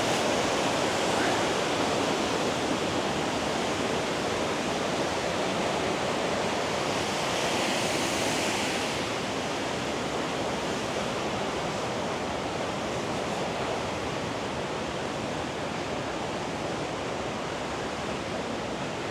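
Waterfall and beck water rushing: a steady, even noise that slowly gets a little quieter.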